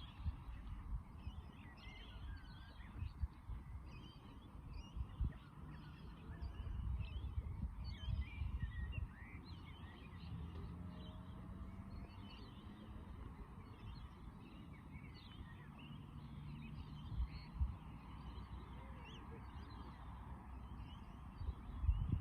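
A flock of small birds chirping and twittering continuously, many short overlapping calls, over a low rumble with a few dull thumps.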